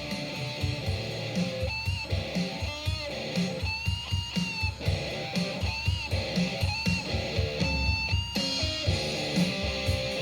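Background music: guitar-led instrumental track with a steady beat and bending lead-guitar notes.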